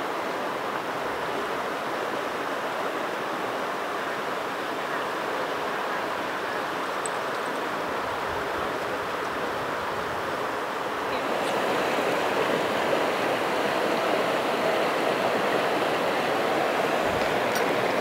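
Mountain river water rushing over granite, a steady noise that grows louder about two-thirds of the way through.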